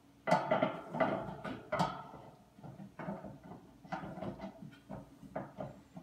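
Irregular metal knocks and clatter as a steel leg is worked onto the frame of a stainless-steel honey extractor.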